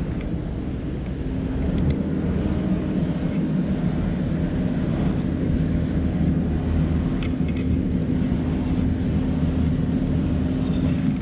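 A steady low machine drone, continuous, with a constant low hum tone.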